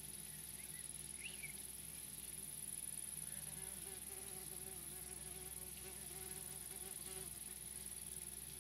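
A flying insect buzzing close by for about four seconds in the middle, its pitch wavering, over a steady high-pitched hiss.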